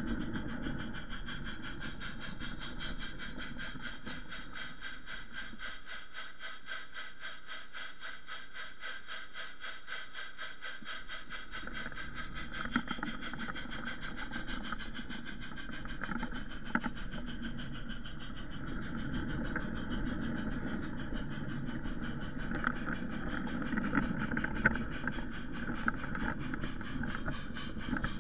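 Garden railway train running along its track, heard from a camera riding in one of its wagons: a steady running noise of wheels on rails and drive with a fast even rattle, and a few sharp clicks in the second half.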